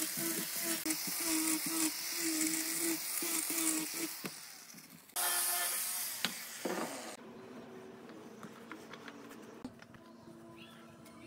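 Angle grinder with a sanding disc sanding the edges of pallet-wood boards: a steady motor whine over the hiss of abrasive on wood, its tone dipping briefly again and again. The sound falls away about four seconds in, starts again suddenly a second later, and stops abruptly about seven seconds in, leaving faint light clicks and knocks.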